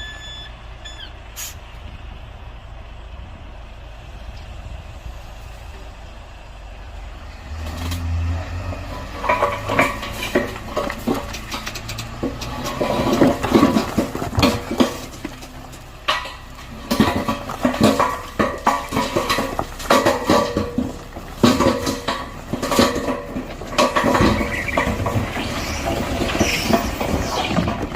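Excavator at work: its engine runs low and steady at first, then from about eight seconds in come repeated clanks, knocks and scrapes of the bucket working soil and stone.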